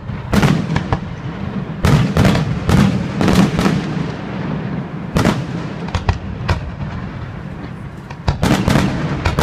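Fireworks display: shells bursting in a quick series of sharp bangs, grouped in clusters at the start, in the middle and near the end, over a continuous low rumble.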